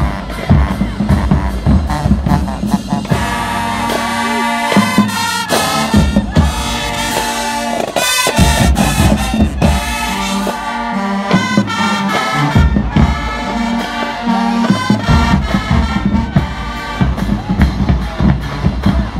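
High school marching band playing: the drumline beats alone at first, then the brass section joins about three seconds in with loud held chords over the drums.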